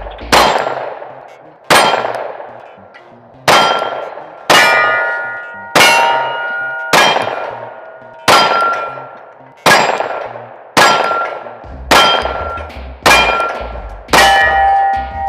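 Glock 43X 9mm pistol firing a string of twelve shots at about one a second, each sharp crack followed by a metallic ringing that dies away before the next. The pistol cycles through the PSA Dagger Micro magazine with no jams.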